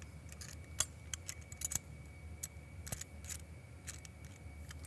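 Light metal clicks and clinks of a dairy filling valve's metal parts and clamp being handled and fitted together by hand: a dozen or so sharp, irregular ticks, the loudest about a second in.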